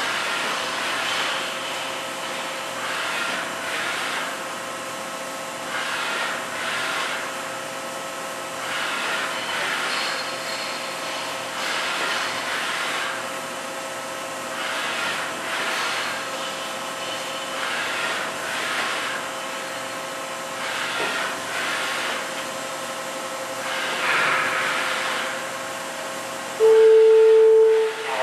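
Daewoo ACE-H100 horizontal machining center running a test program with the spindle turning and the column traversing back and forth. A steady whine is overlaid with swells of noise every couple of seconds. Near the end comes a loud steady tone lasting about a second.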